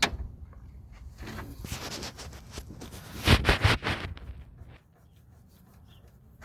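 Short metallic clicks and knocks from the third-cylinder piston of a Mercedes M102 2.0 engine being rocked by hand on its pin: play from a worn piston pin. The knocking is loudest a little past the middle.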